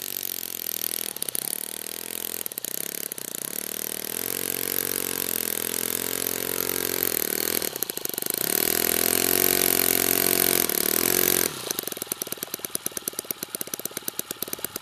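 Engine of a giant-scale radio-controlled Piper Cub model airplane running as it taxis, its pitch rising and falling with the throttle. About three-quarters through it drops suddenly to a lower idle with rapid even pulses.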